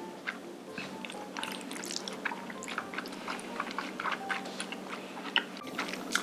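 Close-miked chewing of a mouthful of black bean noodles: a run of wet smacks and small clicks, with soft background music under it.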